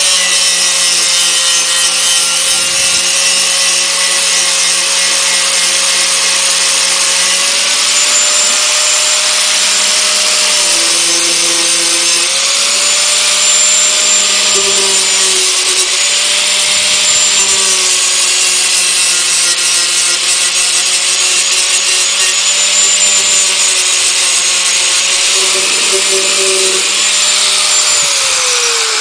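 Angle grinder running with a sanding disc against wood, a steady motor whine over a harsh rubbing hiss, the pitch sagging now and then as the disc bites. Near the end it is switched off and the motor spins down.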